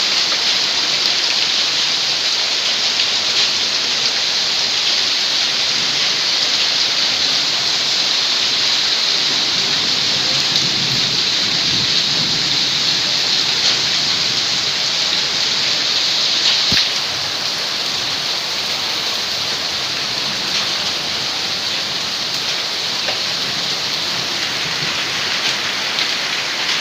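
Hail and heavy rain pelting down in a dense, steady patter. About 17 seconds in there is a click and the patter becomes slightly quieter.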